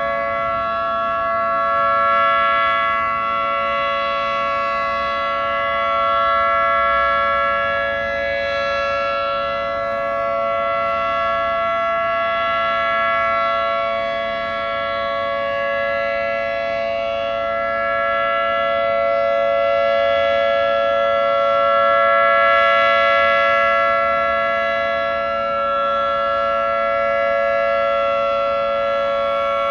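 Federal Signal 2T22 dual-tone rotating outdoor warning siren sounding a steady Alert signal: a held chord that does not change pitch, swelling and fading in loudness as the siren head rotates. A very healthy sounding siren.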